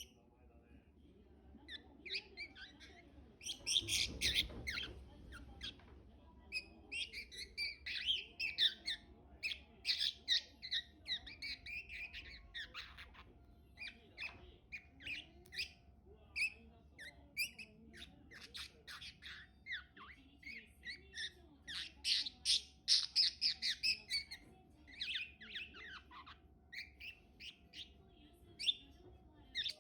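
Budgerigar warbling and chattering: a long, rapid stream of short chirps, clicks and squawky notes, loudest about four seconds in and again around two-thirds of the way through. This is the budgie warble that the owner takes for the bird trying to talk, a forerunner of mimicked speech.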